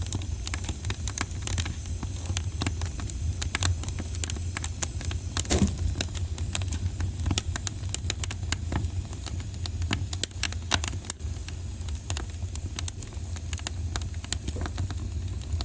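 Wood fire burning in a fireplace: frequent irregular crackles and pops over a low steady rumble, with one louder pop about five and a half seconds in.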